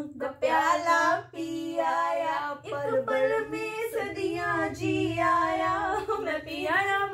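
A woman singing a Bollywood film song unaccompanied, with long held notes that slide in pitch.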